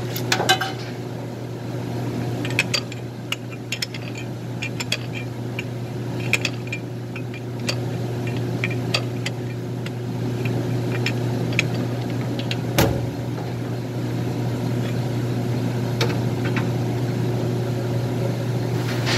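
Lathe running with a steady low hum, while metal clinks and knocks come at irregular moments as hydraulic hose fittings and tools are handled; one sharper knock comes about two-thirds of the way in.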